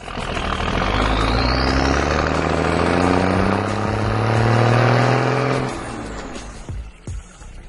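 A vehicle engine accelerating, its pitch rising steadily for about six seconds before it fades away.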